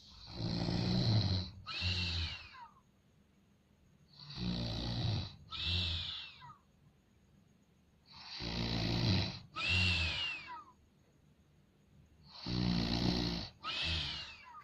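Snoring, four breaths about four seconds apart. Each is a rough, noisy snore followed straight away by a second one with a high whistling note that falls in pitch, which gives the snoring a tuneful sound.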